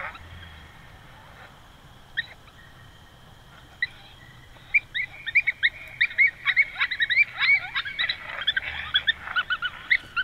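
A group of coyotes yipping and howling: a few scattered high yips at first, then from about five seconds in many quick yips and short wavering howls crowding over one another.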